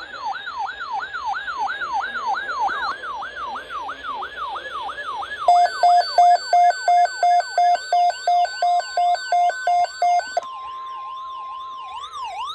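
Electronic alarm siren cycling through its sounds: a quick falling chirp repeated about three times a second, then from about five seconds in a pulsed two-tone beep at about three a second, then a steady tone giving way to a rising-and-falling wail near the end.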